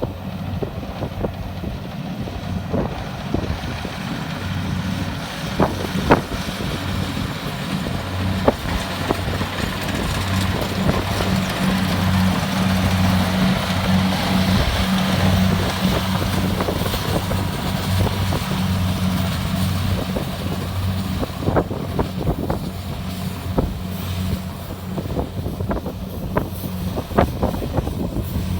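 Kubota DC-70 Plus combine harvester running steadily, its engine giving a low, even hum under a broad mechanical din, with scattered clicks and knocks. It gets a little louder through the middle.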